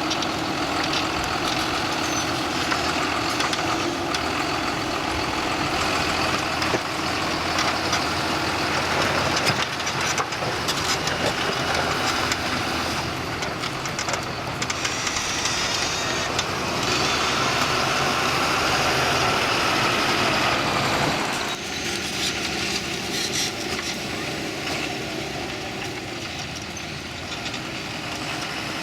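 John Deere 6930 tractors' six-cylinder diesel engines running steadily under ploughing load. The sound changes abruptly about three quarters of the way through, becoming a little quieter.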